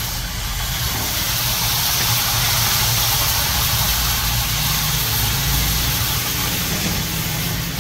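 Large gas burner running under a deg of frying chicken, tomatoes and onions: a steady low rumble with a hiss over it that does not change.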